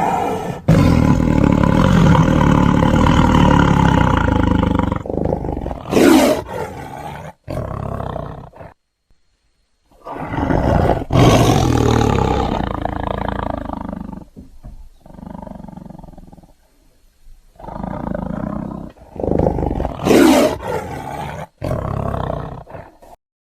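A series of creature roar sound effects mixed from Giganotosaurus and lion sounds: long roars alternate with short, sharp cries and lower growls, with a brief silence about nine seconds in.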